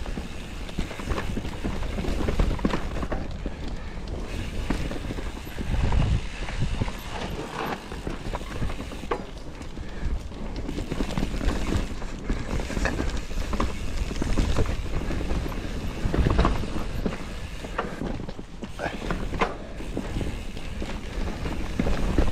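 Mountain bike riding fast down a dirt forest trail: tyres running over loose dirt, pine needles and roots, with the bike rattling and knocking over bumps throughout and a low rumble underneath.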